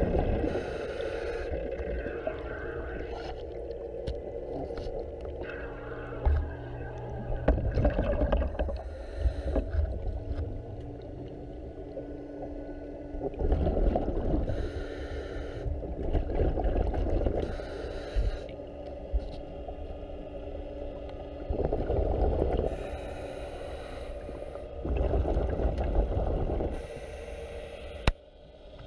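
A diver's breathing regulator heard underwater: a rumble of exhaled bubbles every few seconds, some with the hiss of an inhaled breath beside them, over a steady low hum.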